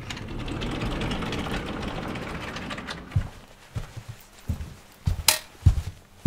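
Title-sequence sound effects: a noisy rumble that fades over about three seconds, then a run of deep thumps roughly every 0.6 s, with one sharp crack about five seconds in.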